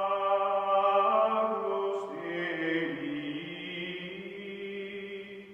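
Music of chant-like choral voices holding long sustained notes, moving to new notes a couple of times and fading near the end.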